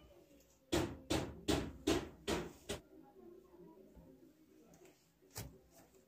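A quick run of six sharp knocks, about two and a half a second, then a single knock near the end.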